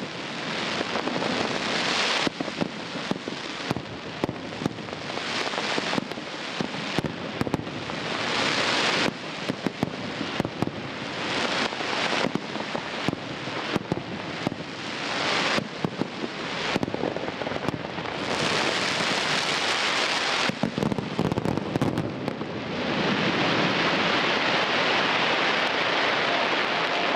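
Pirotecnia Vulcano aerial fireworks display: shells bursting with dense crackling and many sharp bangs in quick succession. About three-quarters of the way in, the separate bangs merge into a steady, dense crackling hiss.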